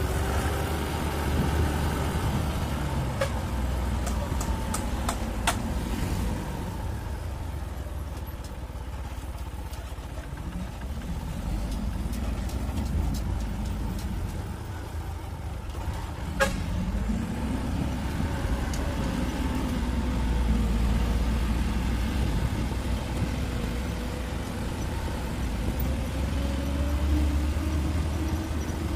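Mitsubishi Canter light truck's diesel engine pulling up a steep grade. The engine note drifts up and down, and rises audibly at one point about halfway through, with a few sharp clicks.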